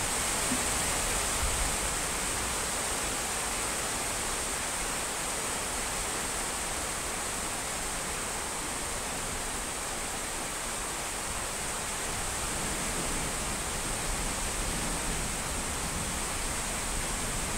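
Steady rain falling, an even hiss that holds without breaks or distinct drops.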